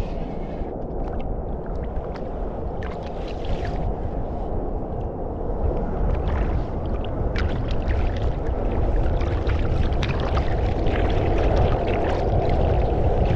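Wooden Greenland paddle stroking through calm sea water: scattered splashes and drips as the blades dip in and lift out, with water gurgling against the kayak over a steady low rush, growing somewhat louder in the second half.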